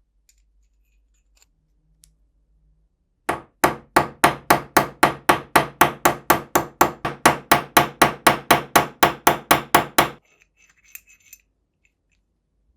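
A hammer striking metal in a fast, even run of about four blows a second, each with a short metallic ring, for roughly seven seconds before stopping.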